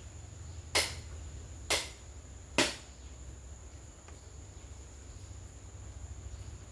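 Three sharp knocks on a wooden table, evenly spaced about a second apart, typical of a feeding bird pecking at the tabletop. A steady high-pitched insect tone runs underneath.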